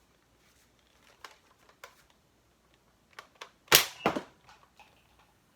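Toy foam-dart pump-action blaster (Adventure Force XL10): a few light plastic clicks, then a sharp spring-driven pop as it fires about three and a half seconds in, followed at once by a second knock.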